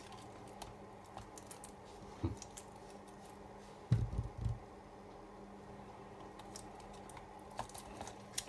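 Faint steady hum of a powered-up laptop's hard drive spinning, with scattered small clicks and a short cluster of soft knocks about four seconds in as the exposed parts are handled.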